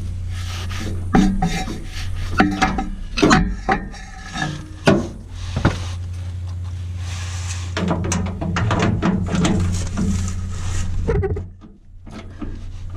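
Socket wrench turning a rusted nut off a stud: irregular metal clicks and clanks with some scraping, over a steady low hum.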